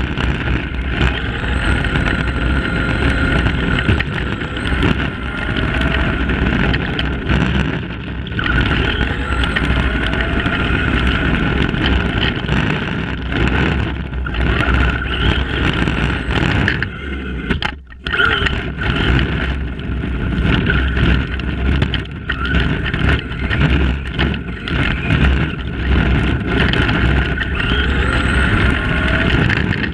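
Tamiya Madcap RC buggy on a lipo battery, its electric motor and gears whining and its tyres rumbling on tarmac, picked up close by a camera clamped to its bumper. The whine rises and falls with the throttle, and the sound cuts out briefly a little past halfway through.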